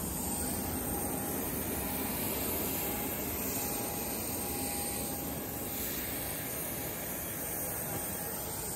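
Steady jet aircraft noise on an airport apron, an even drone with no breaks.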